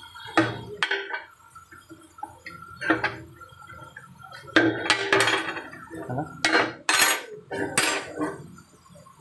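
Bent square iron bar scrolls and a steel bending bar clinking and clanking on a metal workbench as they are moved and set down. Separate metal knocks with a short ring, the busiest cluster about halfway through and a few more near the end.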